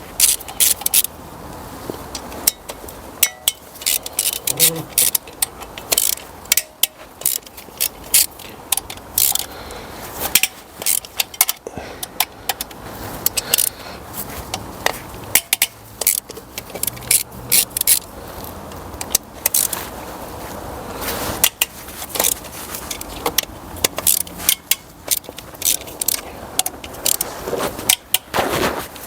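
Hand ratchet wrench clicking in quick runs with short pauses, with metal tool clinks, as manifold bolts are loosened one after another.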